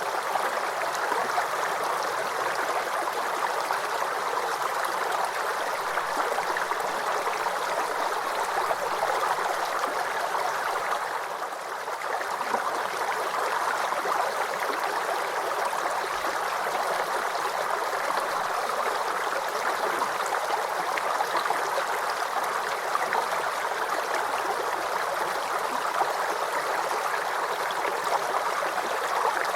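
Small forest creek babbling and gurgling steadily, with a brief slight drop in level about eleven seconds in.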